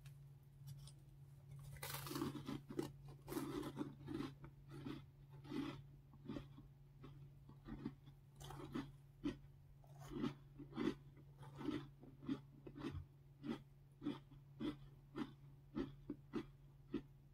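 Mouth chewing a bite of an Oreo cookie stacked on crackers: a dense crunch about two seconds in, then a steady rhythm of crunchy chews, roughly two a second.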